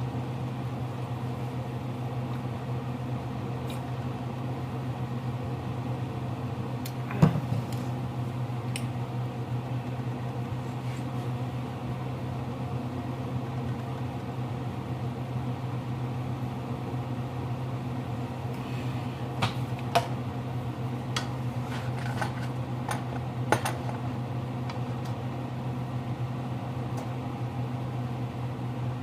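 Steady low hum of a running kitchen appliance, with a few sharp clinks of kitchenware: one about seven seconds in, and more around twenty and twenty-three seconds in.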